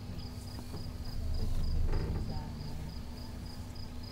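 Insect chirping in an even, fast rhythm of about three chirps a second, over a steady low hum. About two seconds in there is a louder, low rustling thump.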